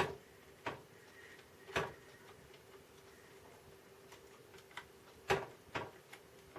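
Roland MKS-20 front-panel momentary push-button switches being pressed one at a time, a handful of sharp clicks at uneven intervals over a faint steady hum. The switches have just been cleaned of crud with rubbing alcohol, and one (number 7) is still sticky and slow to return.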